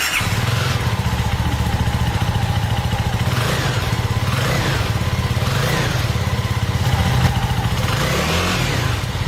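CFMOTO 300SR's single-cylinder 300cc engine idling, with the throttle blipped about four times from the middle to near the end, each rev rising and falling quickly.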